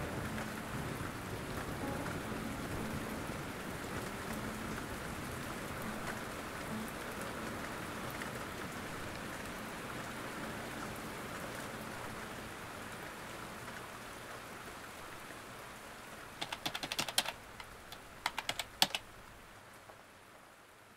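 Steady rain slowly fading out. Near the end come two quick runs of keyboard-typing clicks.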